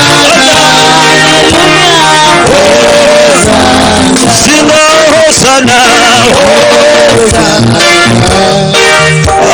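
Music with singing over guitar and a steady bass line, in the style of a gospel worship song.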